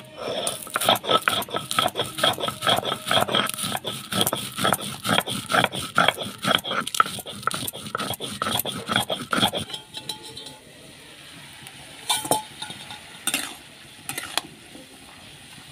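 Roasted whole spices being ground on a stone grinding slab (shil) with a stone roller (nora): quick back-and-forth rasping strokes, several a second. After about ten seconds the grinding stops and a few sharp knocks follow.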